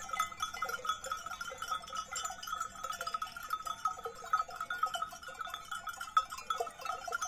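Many bells worn by a grazing flock of sheep, clinking continuously in an irregular jangle at a few ringing pitches.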